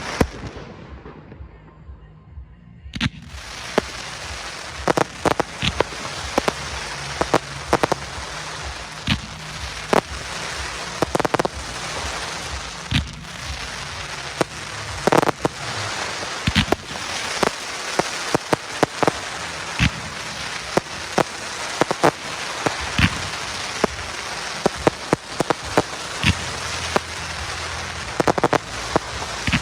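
Aerial fireworks display: many sharp bangs of bursting shells, irregular and often close together, over a continuous dense crackling hiss. The first few seconds are quieter and muffled, then the barrage starts suddenly about three seconds in.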